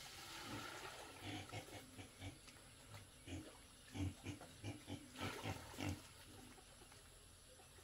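Pigs grunting: a run of short, irregular low grunts that is busiest in the middle and stops a couple of seconds before the end.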